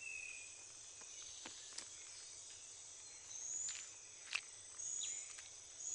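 Tropical forest ambience: a steady high-pitched insect drone, with short high whistled calls every second or so and a few sharp ticks and rustles, the loudest tick a little after four seconds in.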